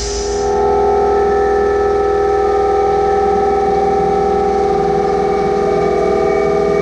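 Okuma MU-10000H five-axis horizontal machining center cutting an engine case: a steady whine of several pitches from the milling cut. A hiss fades out in the first half second.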